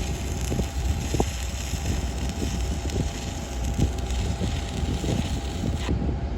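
Stick welding: the arc crackling and hissing with irregular pops, over a steady low rumble and wind on the microphone.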